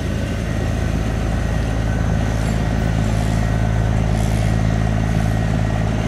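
Diesel engine of a loaded steel river cargo barge passing close by, running with a steady low drone. Over it comes the rush of its propeller wash churning the water.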